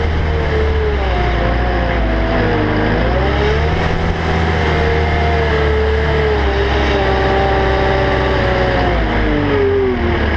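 Caterpillar 299D XHP compact track loader's diesel engine running under the operator's control, with a whine over it. The pitch climbs about three seconds in, holds high, then drops back near the end.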